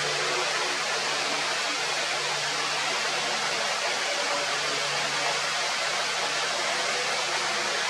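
Steady rushing noise at an even level, like running water, with a faint low hum beneath it.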